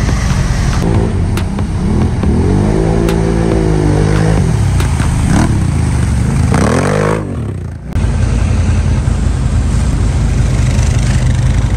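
ATV engines revving as the quads churn through mud, the pitch climbing and falling twice. A short dip about seven and a half seconds in, then a Can-Am side-by-side's engine running lower and steadier.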